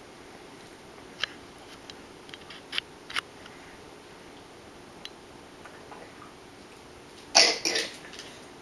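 A toddler's eating noises: a few small mouth clicks and smacks of chewing, then a short, louder double cough near the end.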